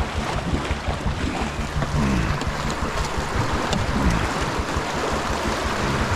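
Fast, shallow creek water rushing around a canoe as it is paddled downstream, with wind buffeting the microphone and a few light knocks.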